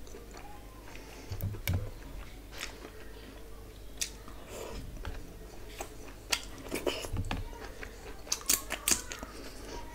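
Close-miked eating sounds: chewing and wet lip smacks of a mouthful of curry and rice eaten by hand, a scattered run of short clicks with the loudest cluster near the end.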